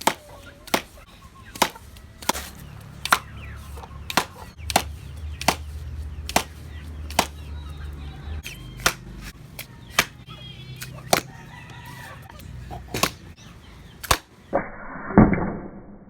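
A run of about twenty sharp knocks, roughly one every 0.7 seconds, over a low steady hum. Near the end the sound turns muffled, with one heavy thump.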